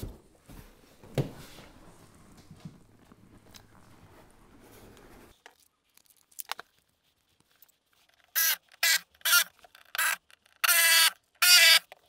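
Makita brushless cordless driver run in six short bursts, each a high-pitched whining buzz, backing out the bolts that hold a boat seat pedestal's base to the deck. A few clicks come before it.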